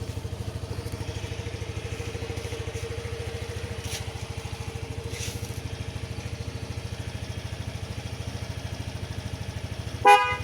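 Yamaha X-Ride 125 scooter's single-cylinder engine idling steadily with an even, fast pulse. Near the end, its aftermarket Denso horn gives one short, loud blast.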